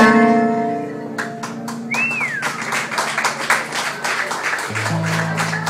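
A live Turkish Romani band's last notes ring out and fade. Scattered hand claps follow, with one whistle from the audience that rises then falls.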